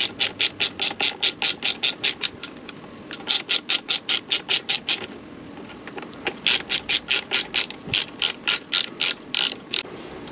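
Ratcheting hand tool clicking rapidly, about seven clicks a second, in three runs with short pauses between, as a fastener is backed out to remove the mirror from the handlebar end.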